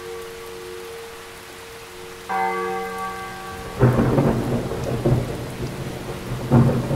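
A bell-like chime sounds in the first half, then heavy rain and thunder start suddenly about four seconds in, with another loud burst of thunder near the end.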